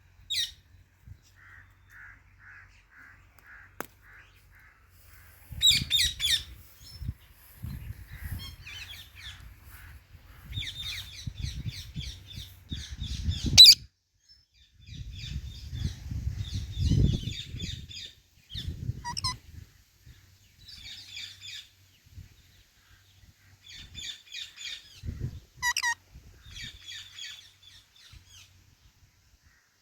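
Indian ringneck parrot chattering in quick runs of high chirps, broken by about four sharp, shrill calls that sweep down in pitch. A low rumble sits under the chatter around the middle.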